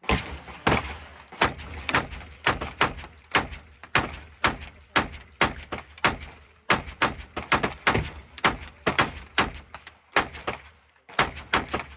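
Rapid gunfire: many sharp shots, about three a second at uneven spacing, with two short pauses near the end.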